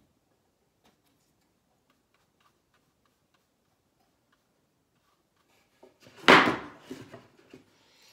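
Near silence with faint ticks, broken about six seconds in by one loud knock or clatter that dies away quickly, followed by a few softer taps.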